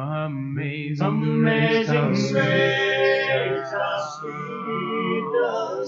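Male a cappella gospel vocal quartet singing sustained close-harmony chords with no clear words, as a new song begins.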